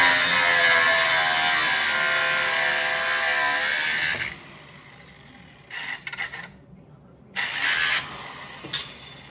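A power tool running on metal stock for about four seconds, its pitch sinking before it cuts off. Three shorter bursts of the tool follow.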